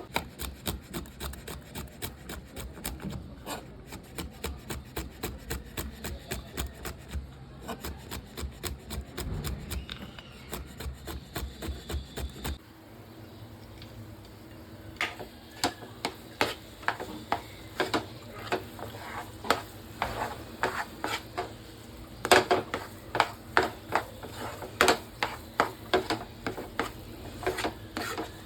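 A spatula stirs and scrapes thick semolina halwa around a pan in even strokes, about three a second. About twelve seconds in, the strokes give way to sharper, irregular clicks and taps of utensil on pan.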